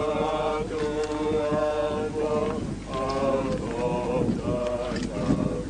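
Voices chanting in costume as monks, a sung chant on long held notes that pauses briefly near the middle and then goes on with a few changes of pitch.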